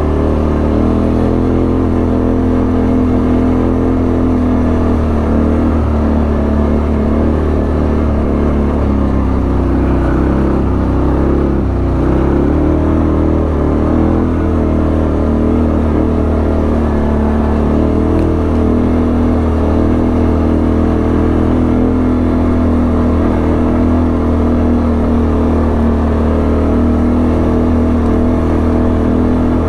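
ATV engine running steadily while riding, its pitch rising and falling for a few seconds near the middle before settling back to an even note.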